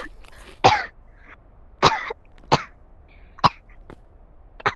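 A person coughing in five short, separate bursts about a second apart, a reaction to food with peanuts in it, which he is allergic to.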